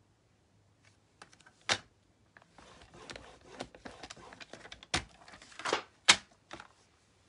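Cardstock being scored on a Stampin' Up! paper trimmer and lifted off it. There are sharp plastic clicks and taps from the trimmer and card, with rustling and sliding card in between. The loudest click comes about six seconds in.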